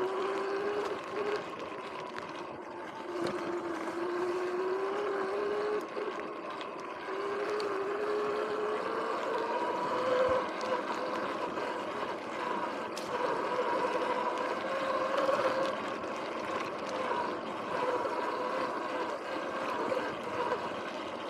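Sur-Ron X electric dirt bike's motor whining, its pitch climbing with speed and dropping back each time the throttle eases, several times over. Under it, a steady rush of tyre and wind noise on the dirt trail.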